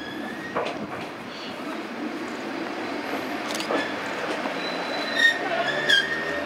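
Tenryu Hamanako Railroad TH2100-series single diesel railcar slowly pulling into the station, running steadily and growing louder as it nears. A few clacks come from the wheels over the track, and a thin, high brake squeal sets in near the end as it slows to stop.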